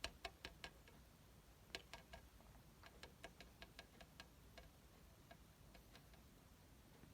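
Near silence broken by faint, irregular light clicks, a few at a time, which thin out towards the end.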